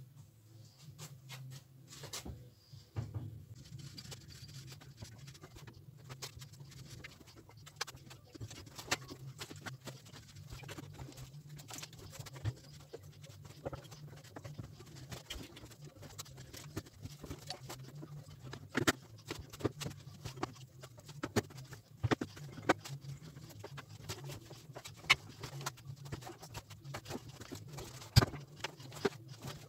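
Scattered, irregular clicks and light knocks of metal parts and tools being handled while an engine is installed in a car, over a steady low hum.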